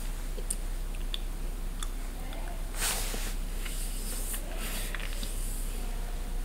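Quiet room tone with a steady low mains hum and scattered faint clicks, and a short breathy rush of noise about three seconds in.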